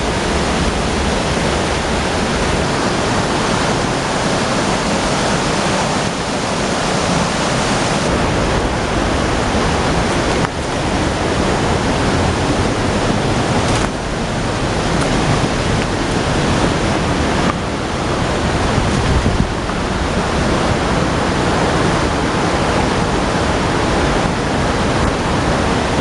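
Waterfall's white water rushing loudly and steadily over rocks.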